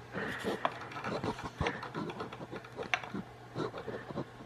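Scattered light metallic clicks and taps of a saw chain and the sharpener's chain stop being handled and set against a cutter, over a faint steady hum.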